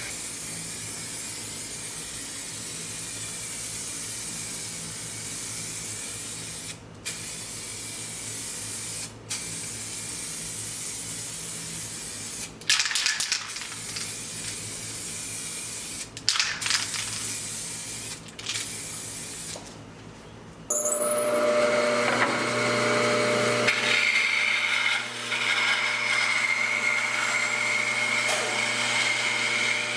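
Spray gun hissing steadily, cut off briefly several times as the trigger is released. About two-thirds of the way through it gives way to a louder power tool running steadily with a high whine.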